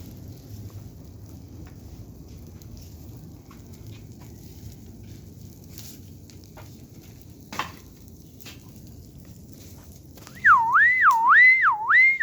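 Campfire burning with a low crackle and a few sharp pops. About ten seconds in, a loud warbling whistle starts, its pitch rising and falling about three times a second, in short runs.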